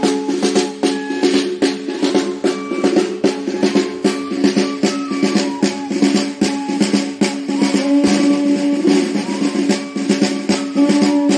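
Procession music: a transverse cane flute playing a stepping melody over a steady drum beat with rattling percussion.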